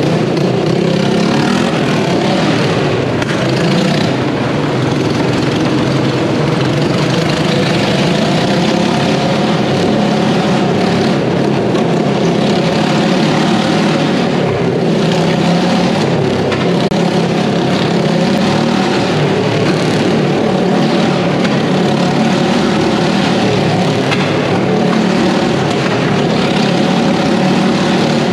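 Several motorcycles riding round the vertical wooden wall of a Wall of Death drum, their engines running loud and steady together.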